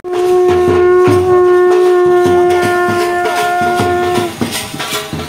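Conch shell (shankh) blown in one long, steady, loud note lasting about four seconds, over a regular beat about twice a second.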